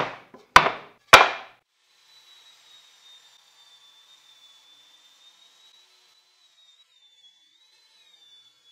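Wooden boards knocked down onto a table: three sharp knocks in the first second and a half. After that only a faint, steady high whine remains.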